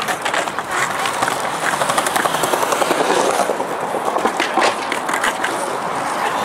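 Outdoor ambience of a city square with people about: a steady noisy hiss full of frequent small clicks, knocks and scrapes.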